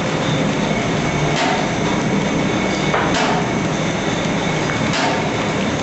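Paper bag making machine running: a steady mechanical clatter, with a sharp knock about every two seconds, three times.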